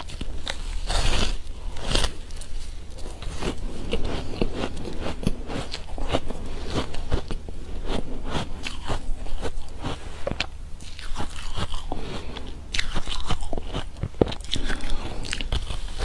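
A person biting and chewing a frozen cake made with ice, giving a run of crisp icy crunches, with louder bites about a second in and again near the end.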